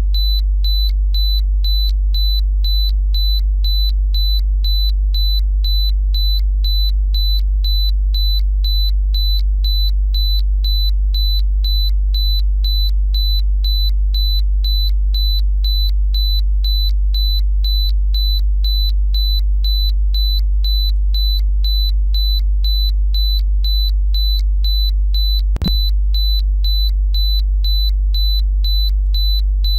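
Synthesized alert sound: a loud, steady deep drone under a short high beep that repeats about two to three times a second, with a single click near the end.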